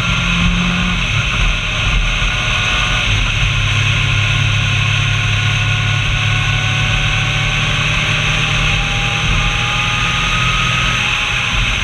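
Road vehicle cruising at steady speed: a low engine hum under loud wind rushing over the camera mounted on its bodywork. The engine note drops a little about three seconds in and then holds.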